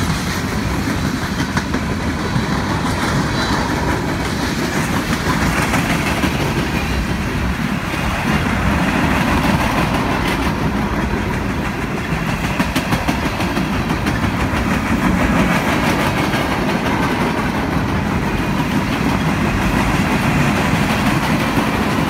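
Freight train cars rolling past at close range: a steady rolling rumble of steel wheels on rail, with rapid clicks.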